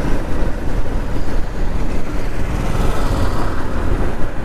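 Wind buffeting a lavalier mic on a moving motorcycle, a loud irregular low rumble over the bike's engine and road noise.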